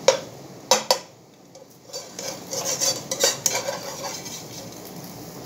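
Metal slotted spatula clinking and scraping against a frying pan while working under a fried egg: a few sharp clinks in the first second, then a run of scraping and clattering from about two to four seconds in.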